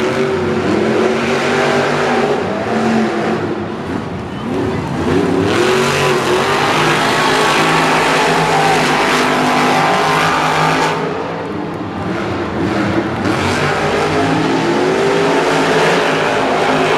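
Monster truck engines revving hard in a race, the pitch climbing again and again as they accelerate, with a loud, dense stretch of engine noise midway.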